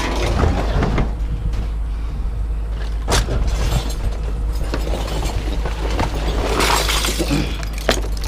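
Scrap metal clanking and crashing as pieces are thrown onto a pile, with a string of sharp impacts and a loud clatter near the end, over a low steady hum.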